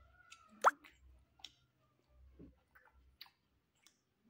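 Eating mouth sounds: one loud pop with a quickly rising pitch about two-thirds of a second in, then a few faint clicks.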